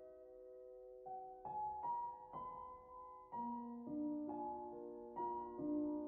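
Soft piano music: a slow melody over sustained chords, quieter in the first second, then fuller, with a new note or chord about every half second.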